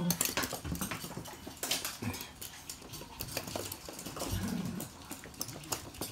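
Toy poodles at play with a plush toy: short, low play growls and whines, twice, with claws clicking and skittering on a hard floor throughout.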